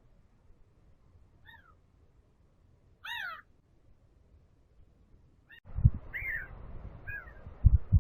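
Short harsh bird calls, a faint one about a second and a half in and a louder arched one about three seconds in, then two more near the end. Past the halfway mark a steady rustling noise with low thumps starts suddenly under the calls.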